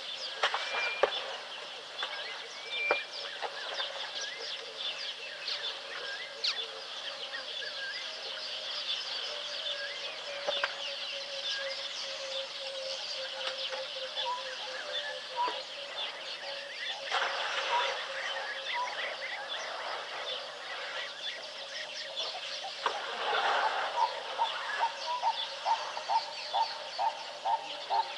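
Wild birds chirping and calling in a steady chorus, with a few short whistled notes early on. Over the last few seconds, one bird gives a quick run of repeated short calls.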